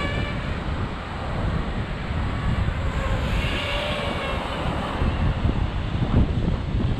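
Strong wind buffeting the microphone, with the high whine of a DJI Ryze Tello mini quadcopter's propellers coming and going through it, plainest about three to four seconds in.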